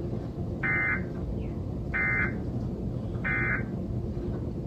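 Emergency Alert System SAME digital data burst, a raspy two-tone warble sounded three times, each about a third of a second long and a little over a second apart: the End of Message code that closes the EAS test.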